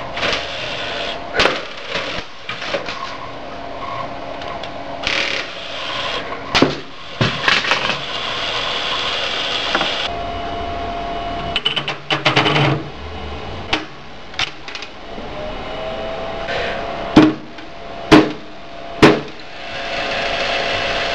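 An old desktop computer's steel case and parts being struck and smashed while it runs: a series of sharp knocks and clattering, with three loud blows about a second apart near the end, over the steady hum of the running machine.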